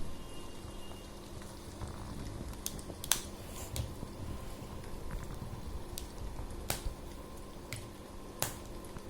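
Plastic connector pens clicking as they are snapped together and handled, a series of sharp, irregular clicks.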